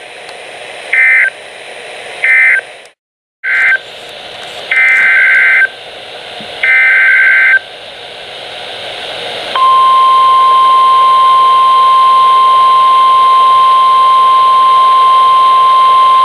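Recreated NOAA Weather Radio alert over a hissy radio channel. It opens with short SAME data bursts ending the previous warning, then a brief dropout, then three more data bursts (the last two longer) heading the next warning. About nine seconds in, the steady 1050 Hz weather radio alert tone starts and holds.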